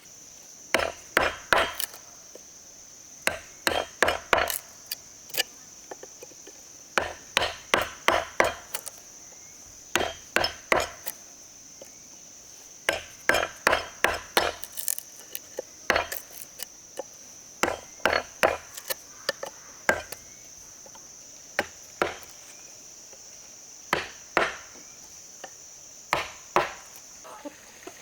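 A hand tool striking wood, in bursts of three to six quick blows every couple of seconds.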